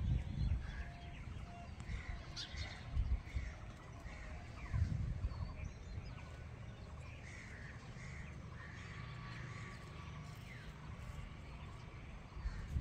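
Crows cawing repeatedly in short runs, with a few quick chirps from smaller birds, over a low wind rumble on the microphone.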